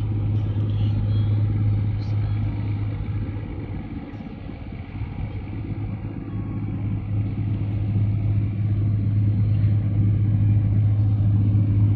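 Steady low engine drone with a constant deep hum, dipping a little in level about four seconds in and building back up.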